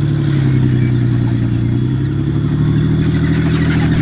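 Challenger 1 main battle tank's Condor V12 diesel running steadily with a deep, even drone, while the steel tracks clatter as the tank moves.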